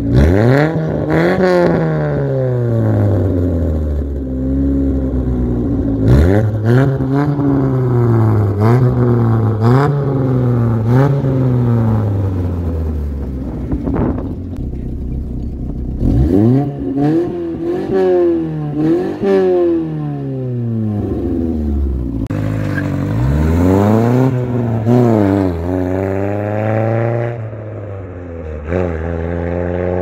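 Chevrolet Corsa's 1.6 four-cylinder engine running through an open, free-flowing dual-tip exhaust, revved again and again in quick blips that rise and fall back to idle, with a short steady idle in the middle. Near the end the revs climb in a longer, steadier rise as the car accelerates away.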